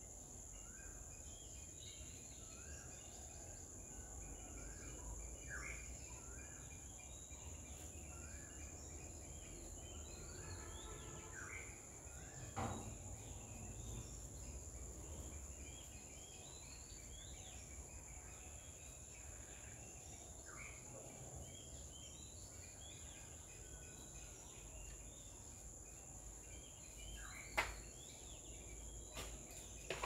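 Insects droning steadily on a high pitch, with many short small-bird chirps scattered through, and two sharp clicks: one a little before halfway and one near the end.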